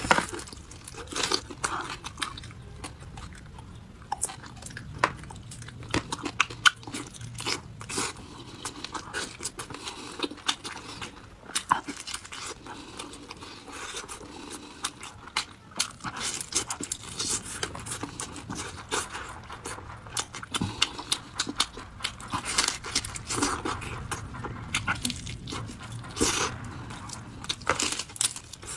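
Close-miked eating of a red-braised (soy sauce) pig's trotter: biting and chewing the gelatinous skin and gnawing at the bones, with many irregular sharp wet clicks.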